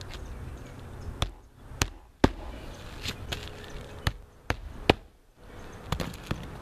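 Hammer driving roofing nails through new asphalt shingles into the roof deck: about ten sharp blows, unevenly spaced, the loudest about two and five seconds in.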